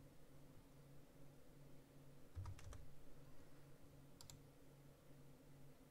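Faint clicks of a computer keyboard: a quick run of three about halfway through and two more about a second and a half later, over a faint low hum.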